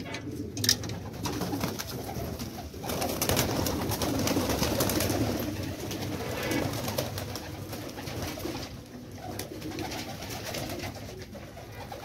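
A flock of domestic pigeons cooing, with wing flaps and flutters as birds fly out of the loft, busiest a few seconds in.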